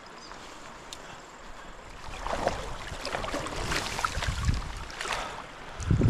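River water running, then from about two seconds in a rainbow trout thrashing and splashing as it is scooped into a landing net, with a low thump near the end.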